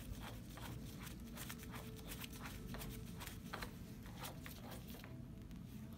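Faint, quick clicking, about three or four clicks a second, as the stroke-length adjuster of a Hibar piston filling pump is turned down toward a very short stroke. The clicking stops about five seconds in.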